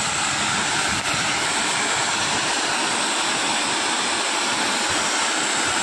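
Steady loud hiss of a 300-bar high-pressure washer's jet spraying water.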